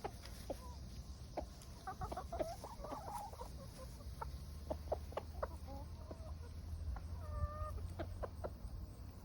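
Backyard hens clucking softly and intermittently while pecking at thrown kitchen scraps, in short scattered notes, with one longer held note about seven seconds in.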